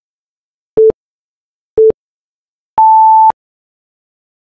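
Electronic countdown-timer beeps: two short steady beeps a second apart, then about three seconds in a longer, higher beep that marks the countdown reaching zero, time up.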